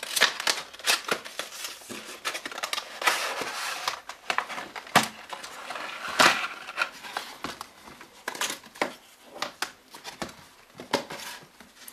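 Cardboard packaging being opened and a plastic tray slid out and handled: irregular rustling, scraping and sharp clicks of card, paper and plastic.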